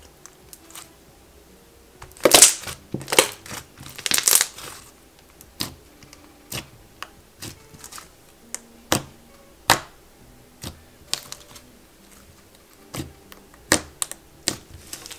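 Thick, creamy clay slime being pressed and poked by hand, giving irregular bubble pops and sticky clicks. A few louder, longer crackling pops come in a cluster about two to four seconds in, then single pops spaced roughly a second apart.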